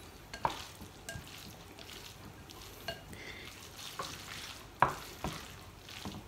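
Wooden chopsticks mixing chapagetti (Korean black bean sauce noodles) in a glass bowl: soft wet stirring with scattered clicks and taps, the sharpest a little before five seconds in.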